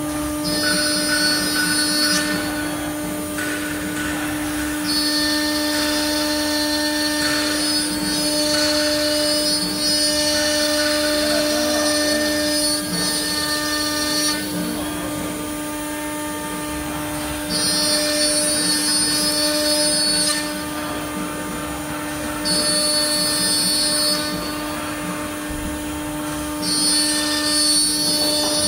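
CNC router spindle cutting an MDF sheet, with a steady whine. Louder, higher-pitched cutting noise comes and goes in stretches of a few seconds as the bit moves along its path.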